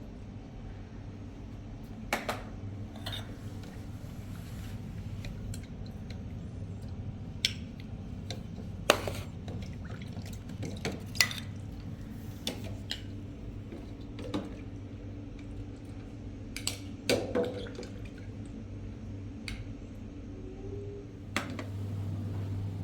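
About a dozen sharp clinks and knocks of dishes and kitchenware, scattered irregularly over a steady low hum that grows louder near the end.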